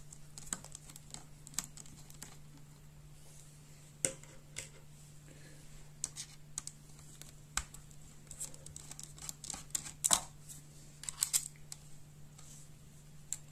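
Small precision screwdriver turning out tiny screws from a laptop's back edge: light irregular clicks and ticks of the bit in the screw heads and the screws against the metal, over a faint steady low hum.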